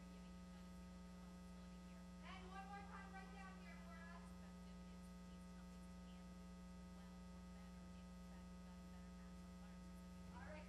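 Low steady electrical mains hum, with a faint distant voice briefly about two seconds in.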